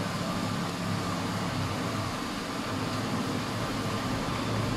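Steady mechanical background rumble with an even hiss above it.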